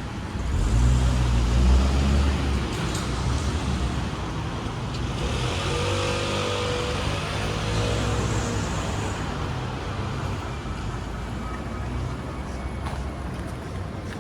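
Road traffic passing close by: one vehicle's engine goes by loudly about a second in, then a second vehicle passes with a steady engine note in the middle, over a constant hum of street noise.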